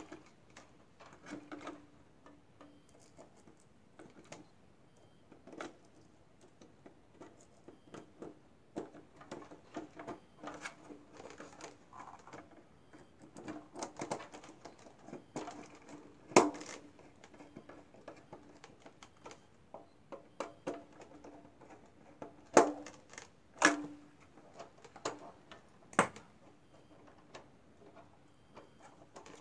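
Scattered small clicks, taps and light scrapes of a small screwdriver and fingers working on plastic servos and metal pushrods in a model airplane's wooden servo bay, with a handful of sharper clicks from about halfway on.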